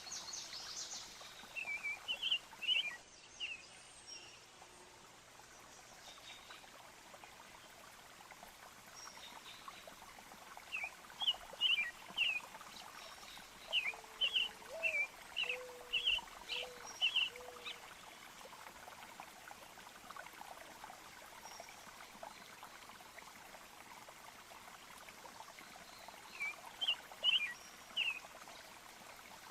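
Nature soundscape: birds chirping in scattered bursts of short, quick high notes over a faint steady trickle of running water.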